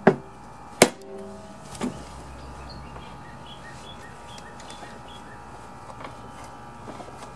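Small mallet striking a push mower's blade to knock its bent crankshaft straight: two hard blows about a second apart, each leaving a brief metallic ring, and a weaker third blow about two seconds in.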